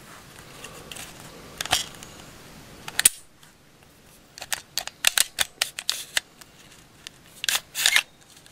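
Walther PPQ M1 9mm pistol being field-stripped by hand, giving metallic clicks and clacks of its slide and takedown parts. There is one sharp click about three seconds in, then a quick run of clicks in the middle, and a short sliding clatter near the end as the slide comes off the frame.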